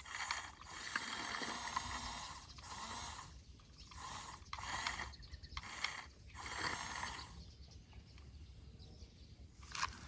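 Toy remote-control bulldozer's small electric motor and plastic gearbox whirring in short stop-start bursts, about seven in a row, then mostly quiet with one last brief burst near the end.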